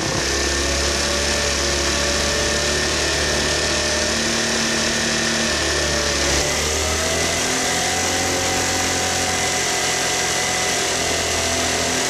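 Moped engine running steadily under way, with a hiss of wind and road noise over it; its pitch rises a little about halfway through.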